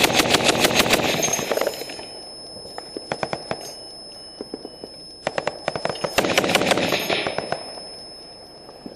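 Firefight with automatic gunfire: a rapid stream of shots at the start, then scattered single shots and short bursts, and another dense burst about five seconds in. A thin, steady high-pitched whine runs underneath from about a second in.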